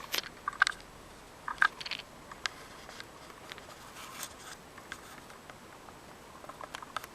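Small sharp clicks and taps of a screwdriver working the ribbon-cable connector tab inside a compact digital camera, three louder ones in the first two seconds, then fainter scattered ticks.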